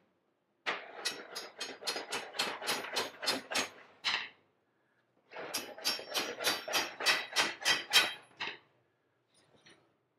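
Hammer tapping on a steel part in quick blows, about four or five a second, in two runs of a few seconds each with a short pause between, seating the part into place.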